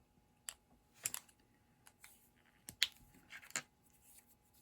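A few light, sharp clicks and taps at irregular intervals: small metal and plastic carburetor parts and a hand tool being handled on a hard work surface while a chainsaw carburetor is taken apart.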